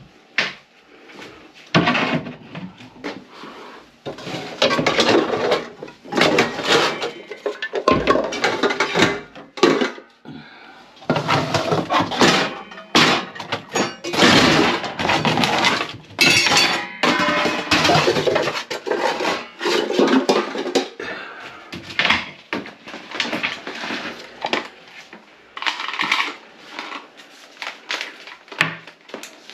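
Stainless steel pots, lids and pans clanking and clattering against each other as they are pulled out of an under-sink cabinet and set down, in repeated bursts of handling.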